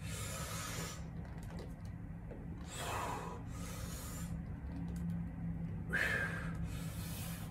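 A man breathing hard through a set of dumbbell bench presses with 50-pound dumbbells: three forceful breaths about three seconds apart, one per rep, over a steady low hum.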